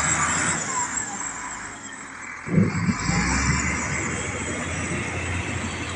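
Steady low rumble of a heavy diesel vehicle idling, under a rushing noise, with a single thump about two and a half seconds in.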